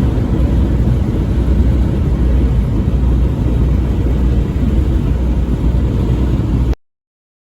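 Truck driving on the highway: a steady, loud low rumble of engine and road noise that cuts off abruptly near the end.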